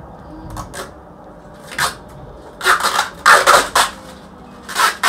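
Thin protective plastic film being peeled and crumpled off a sheet of picture-frame glazing. It crackles and crinkles in several sharp bursts, starting about two seconds in, with the busiest stretch a little after the middle.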